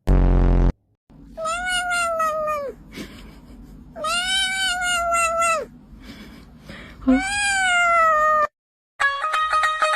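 A cat meowing three times in long, drawn-out meows that rise and then fall in pitch. A short, loud, low buzz comes just before them, and plucked-string music starts near the end.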